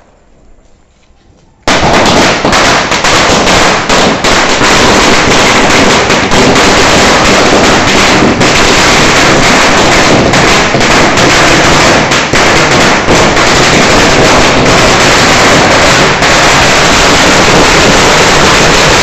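A string of firecrackers going off in a rapid, unbroken run of loud bangs, starting suddenly about two seconds in.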